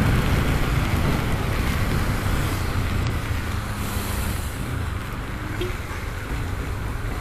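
Riding a Honda CB300 motorcycle in traffic on a rain-wet road: steady wind rush and rumble on the microphone, with road and tyre noise on the wet asphalt and passing traffic.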